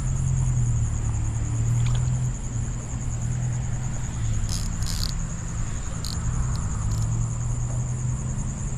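Steady high chirring of insects over a continuous low rumble, with a few short high clicks scattered through the middle.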